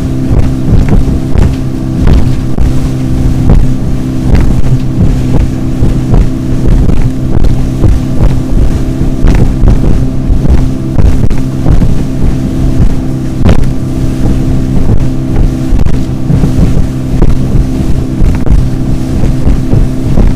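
Motorboat engine running at speed with a steady drone, with wind buffeting the microphone and frequent knocks and splashes as the hull runs through the waves.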